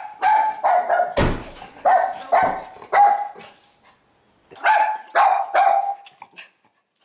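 A small schnauzer barking in short, sharp barks, about ten in three quick runs with a pause midway, an excited greeting bark. About a second in, a single heavy thump, a car door being shut.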